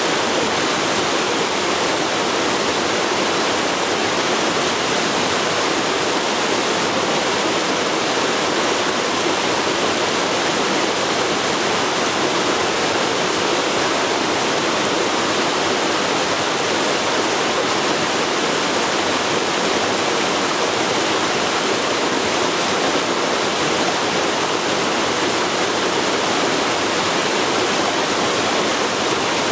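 Forest river flowing: a steady, unbroken rush of moving water.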